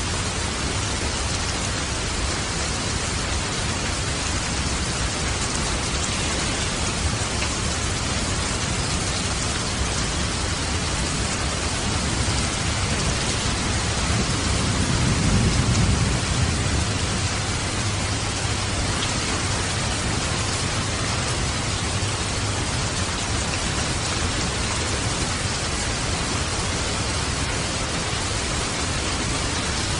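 Steady rain falling, an even hiss of drops, with a low rumble of distant thunder swelling and fading about halfway through.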